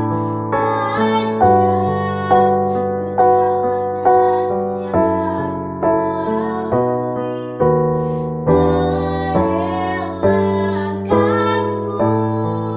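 A girl singing a slow song with piano accompaniment, the piano striking a new chord about once a second.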